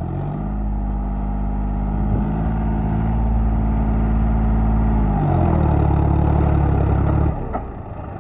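John Deere 5105 tractor's three-cylinder diesel engine revving up and running hard and steady while towing a trolley across soft ploughed soil. The engine note shifts about five seconds in, then the revs drop suddenly near the end.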